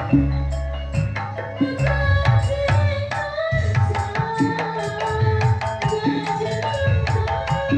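Dolalak dance music: hand drums beating a quick, busy rhythm with deep drum hits, under a held melody line.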